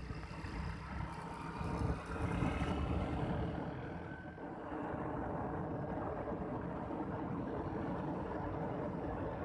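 Motorcycle riding along a road, its engine and road noise running continuously; the sound shifts about four seconds in and then stays even.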